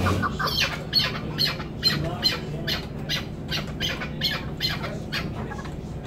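Chukar partridge calling: a rapid, even run of sharp, clipped notes, about three or four a second, that stops near the end.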